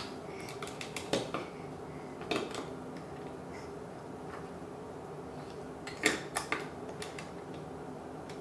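Plastic Duplo bricks clacking against each other and the wooden tabletop as they are handled: a few sharp clicks about a second in and again about two and a half seconds in, with the loudest cluster about six seconds in, over a faint steady hum.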